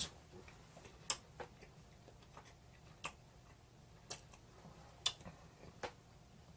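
Faint, irregular clicks, about six spread over several seconds: mouth and lip smacks from chewing food.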